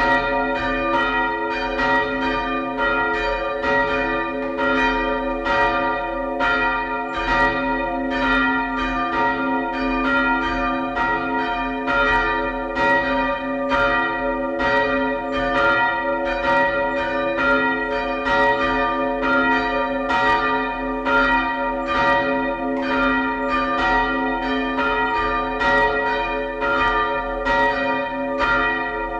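Church bells rung by hand with ropes, two bells swinging and striking in a steady, overlapping peal. Their strikes come two to three times a second, and the bells ring on between them.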